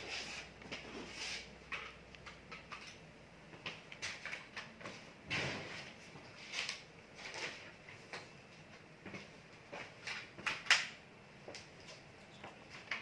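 Irregular clicks, knocks and scraping sounds of objects being handled, with a faint low hum that stops about a quarter of the way in.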